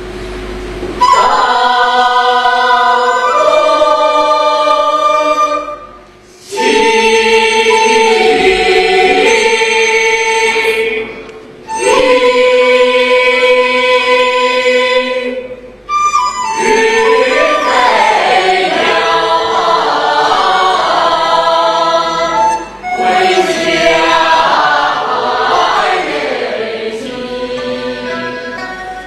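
A choir singing a slow song in Chinese, in five long held phrases with short breaths between them.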